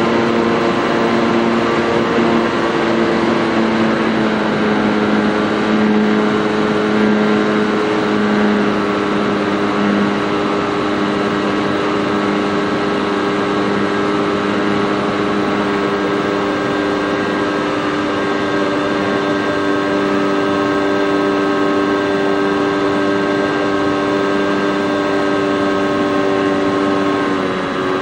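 Radio-control model airplane's motor and propeller running at steady power, heard from the onboard FPV camera. The hum holds several steady tones, shifts slightly in pitch about four seconds in, and dips briefly near the end.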